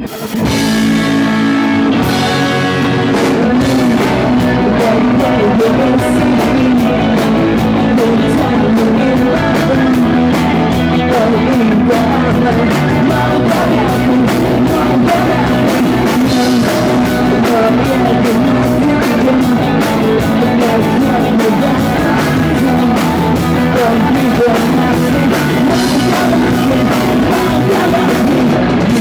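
A live rock band playing loudly: distorted electric guitars, bass guitar and a drum kit, with a male singer singing into the microphone. The music is already in full swing from the first instant.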